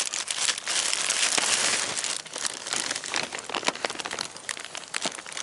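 Thin plastic shopping bag crinkling as it is handled and held open, a dense rustle for about two seconds, then sparser crackles.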